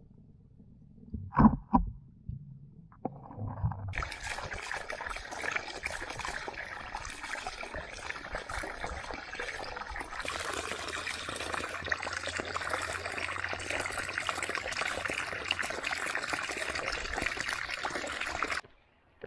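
Water splashing and trickling over rocks at a backyard pond's waterfall, close to the microphone, a steady rush that starts a few seconds in, grows brighter about halfway and cuts off abruptly near the end. Before it come a couple of muffled knocks.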